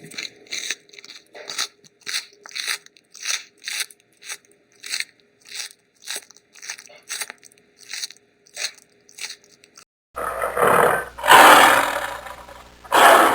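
An animal chewing crunchy food: quick, crisp crunches, about three a second. About ten seconds in, a louder rough noise takes over.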